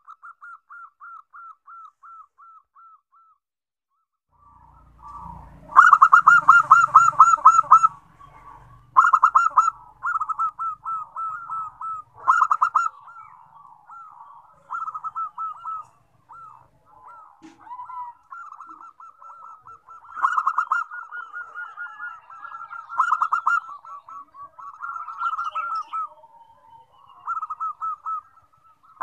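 Zebra doves (perkutut) cooing in fast runs of short, clipped notes. Several birds call over one another in bouts with brief pauses between them.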